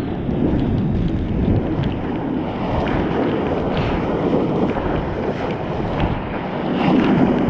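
Water rushing and spraying past a bodyboard as it rides a wave, with wind buffeting the board-mounted action camera's microphone: a steady rush with small splashes.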